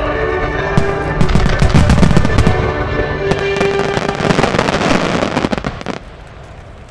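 A fireworks display finale: dense, rapid aerial shell bursts and crackling fire over music. Both cut off suddenly about six seconds in, leaving only a few faint distant cracks.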